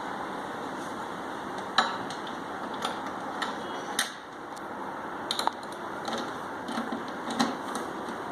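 Scattered clicks and light knocks of metal wall-mount clamps and screws being handled and fitted onto the back of a TV, over a steady background hiss.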